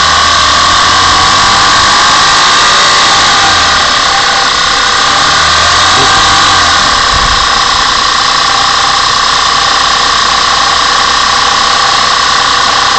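Audi A6 4F 3.2 FSI V6 engine idling steadily, with a strong steady high whine over the running noise. Engine speed lifts and settles slightly twice.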